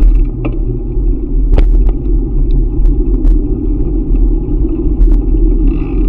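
Bicycle ride: steady wind noise on the microphone of the moving camera, with a few sharp clicks scattered through it.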